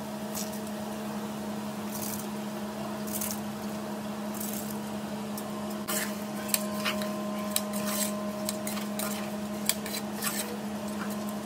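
A metal ladle scraping and clinking against the inside of a pressure cooker, with a soft wet squish as soaked rice is added and stirred into vegetable masala. The clicks come more often in the second half, over a steady low hum.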